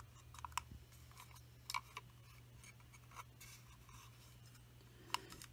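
Faint, scattered clicks and light rubbing of a model railway tender being turned over in the hands, over a low steady hum.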